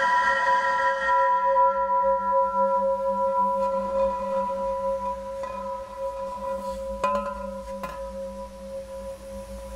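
A sustained, bell-like ringing of several steady tones that slowly fades, with two brief clicks about seven and eight seconds in.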